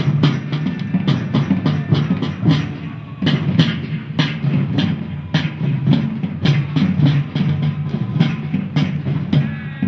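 Music with a busy drum beat of several sharp hits a second over a steady low backing.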